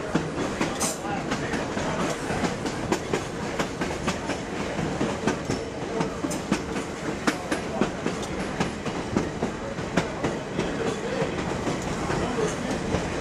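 Red Arrow Lines trolley car 66 running along the track: a steady rumble of wheels and car body, with irregular sharp clicks as the wheels pass over rail joints.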